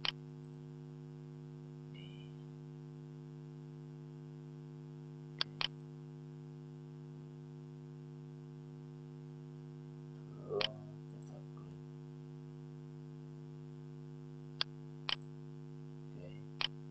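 Steady electrical hum, with computer mouse clicks now and then, single and in pairs. A louder brief sound comes about ten seconds in.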